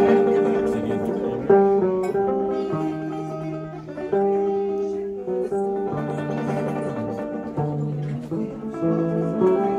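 Small acoustic band playing live on guitars and other plucked string instruments, picked notes over a bass line that steps from note to note, with no singing.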